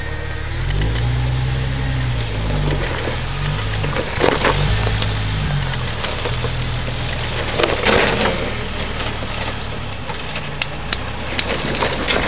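Jeep Wrangler engine running and revving in low gear as it crawls up onto a boulder, its pitch rising and falling, while brush and branches crackle and snap under the tyres and bumper; the loudest snaps come about four seconds and eight seconds in.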